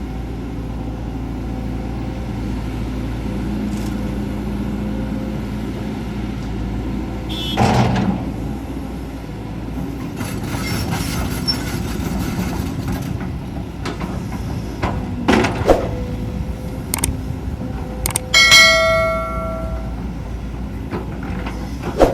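Volvo EC210D excavator's diesel engine running steadily at work, with several sharp metallic clanks from the machinery, one of them ringing on for about a second a little past the middle.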